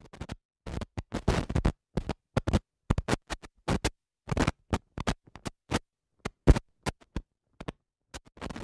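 Old-film crackle sound effect: irregular pops and short scratchy crackles separated by dead silence.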